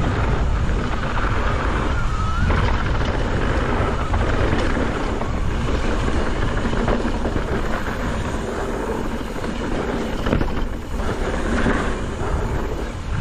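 Wind rushing over the action camera's microphone at downhill speed, mixed with the rumble of tyres on a dirt trail and scattered clicks and knocks from the mountain bike rattling over rough ground.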